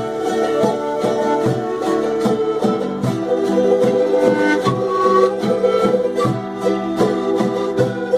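Instrumental music on plucked string instruments, strummed and picked in a steady rhythm.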